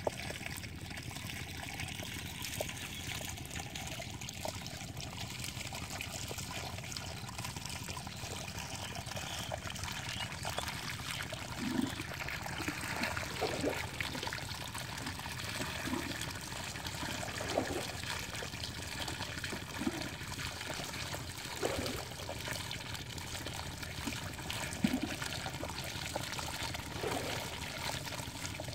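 Shallow pond water trickling and pouring through a narrow gap cut in a mud bank into a woven bamboo basket, the outflow that carries small barb fish into the basket trap. Over the steady trickle come a dozen or so small plops, beginning about halfway through.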